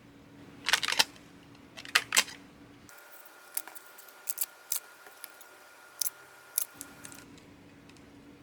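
Packing sounds: crisp snips and crinkling clicks in two quick clusters in the first couple of seconds, then scattered lighter ticks and taps.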